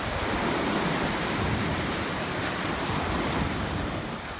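Ocean surf washing onto the beach, a steady rush, with wind buffeting the microphone.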